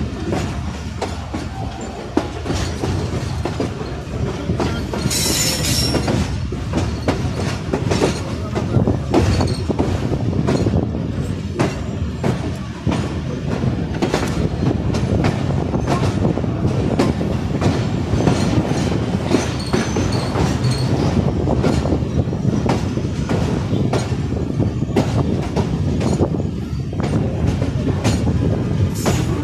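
Train wheels clattering over rail joints and points at low speed, heard at an open coach doorway, over a steady rumble of the running train. A brief high squeal of wheels about five seconds in.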